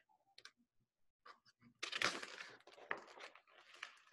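Paper pages of a picture book rustling as they are leafed through, starting about two seconds in, with a few small handling clicks before it; faint.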